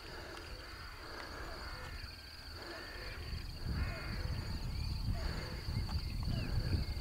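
Countryside ambience: a steady high-pitched trill throughout, several short harsh calls, a few small chirps, and a low rumble that grows louder about halfway through.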